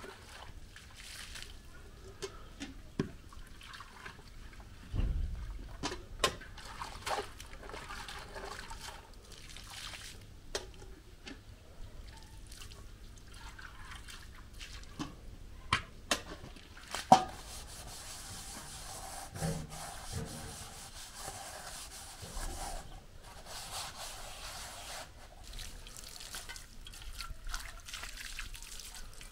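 Metal cooking pots being washed by hand: rubbing and scrubbing, scattered sharp clinks of metal cookware, the loudest about 17 seconds in, and water poured from an aluminium kettle, splashing and trickling over the pans.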